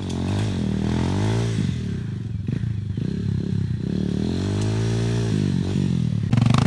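Dirt bike engine revving, its pitch rising and falling back twice, with a few short clattering knocks about halfway through.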